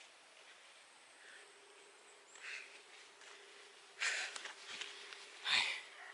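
A person moving and handling things right at the microphone: two short, noisy bursts about four and five and a half seconds in. Faint bird chirps and a faint steady hum lie underneath.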